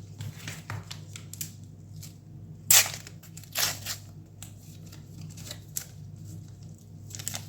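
Sticker pack wrappers being handled and opened by hand: scattered small crinkles and clicks, with two sharp, louder snaps about three seconds in, half a second apart.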